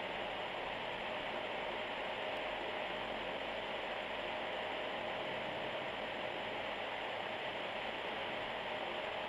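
Onions, tomatoes and green chillies frying in oil in a pan: a steady, even sizzle.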